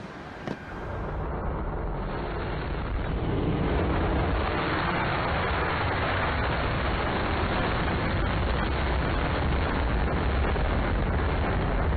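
Rocket motor of a missile in flight after launch: a steady loud rushing noise that builds over the first few seconds and then holds. A short click about half a second in.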